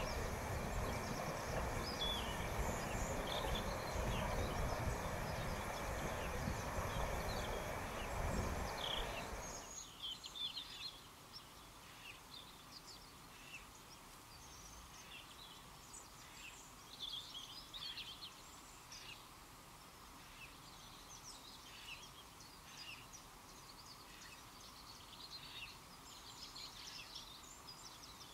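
Water rushing over a low river weir as a steady loud roar that cuts off abruptly about ten seconds in. Then a quieter outdoor background with birds chirping here and there.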